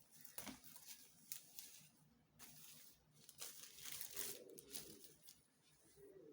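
Faint rustling and crinkling with scattered light clicks, as the packaging and parts of a Mechanix construction kit are handled.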